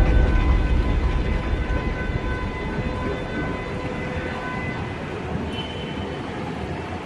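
Metro train running through the station, its low rumble fading steadily over several seconds, with faint high whining tones over it.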